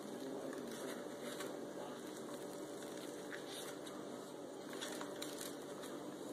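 Dry rub shaken from a metal-lidded shaker jar, the grains pattering onto raw pork and an aluminium sheet pan in a few light shakes, with soft handling of the meat.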